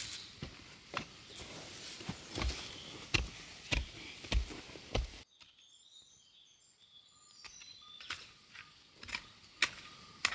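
Footsteps crunching over dry burnt debris and ash, about two steps a second. About five seconds in they stop suddenly, leaving quieter ground with birds chirping, and a few more steps come near the end.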